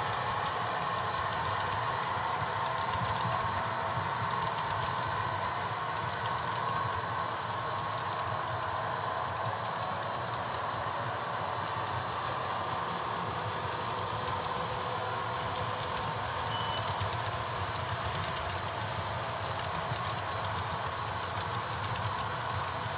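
HO scale model freight cars rolling steadily along the track, a continuous running sound with a dense fine clicking from the wheels.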